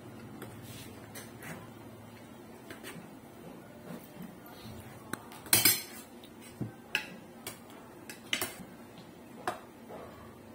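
Metal spoons clinking and scraping against plates during eating, in scattered sharp clinks, with the loudest cluster about five and a half seconds in.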